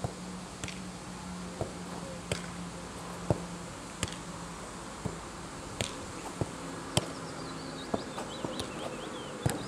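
A soccer ball being kicked back and forth: a string of sharp, irregularly spaced thuds, about a dozen in all. A steady low buzz runs underneath.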